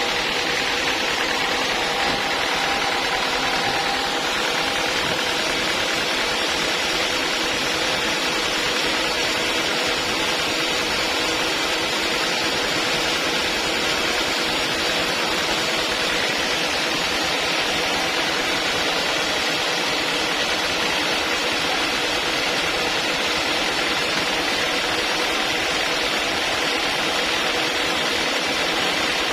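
Sawmill machinery running steadily, an even mechanical drone with a few faint steady tones and no breaks.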